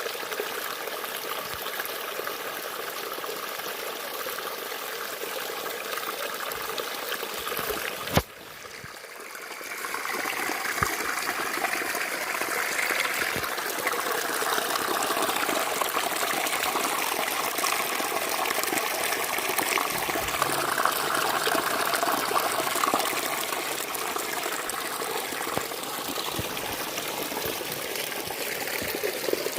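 Waterfall water rushing steadily. A sharp click about eight seconds in, after which the sound drops away and builds back up over a couple of seconds.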